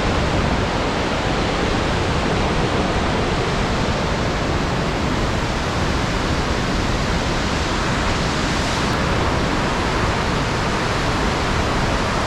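Steady, loud rush of a large waterfall close to its base, a dense even noise of falling water that does not change.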